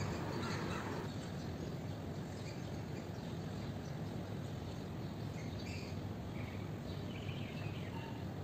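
Steady outdoor background noise with a few faint, brief bird chirps scattered through it, mostly in the second half.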